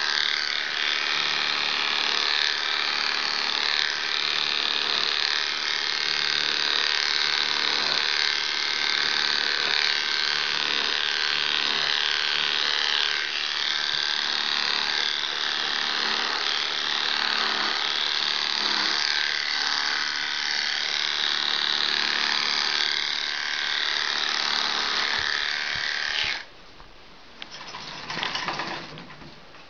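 Electric dog clippers buzzing steadily as the blade cuts through a wet West Highland white terrier's coat. The buzz cuts out about 26 seconds in, leaving it much quieter to the end.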